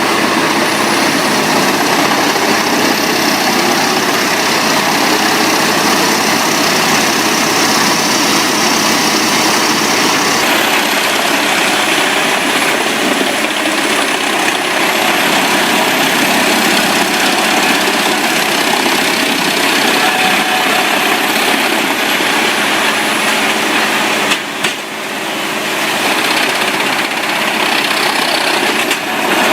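Large engine-driven wood chipper running steadily under a loud machine noise, with a faint high whine above it. The sound changes abruptly about ten seconds in and dips briefly near the end.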